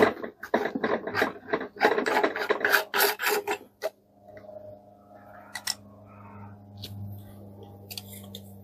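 Rapid rasping and scraping of a threaded plastic part being unscrewed by hand for about four seconds, as the lubricator's oil container is opened for filling. After that only a faint steady hum remains.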